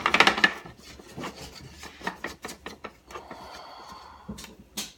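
Irregular scraping and clicking of a utensil against a container as slime ingredients are stirred together, with a couple of sharper knocks near the end.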